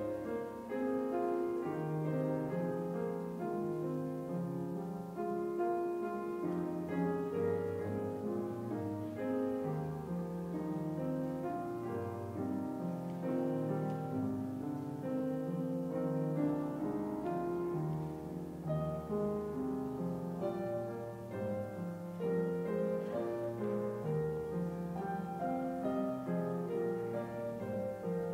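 Piano music: chords with a melody over them, played at an even, moderate level.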